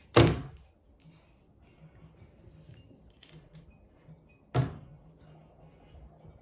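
Two sharp knocks about four seconds apart, the first the louder, with faint small clicks between them.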